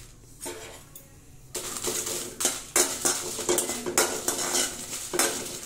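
Metal spoon scraping and clinking against an aluminium kadai as whole dried red chillies are stirred in a little hot oil to roast them. The stirring starts about a second and a half in, after a fairly quiet start, and goes on as quick, repeated scrapes and taps.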